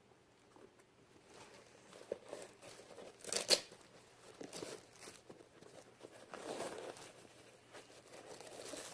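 Shoe packaging being handled and pulled open: rustling, crinkling and tearing. A sharp, loud crackle comes about three and a half seconds in.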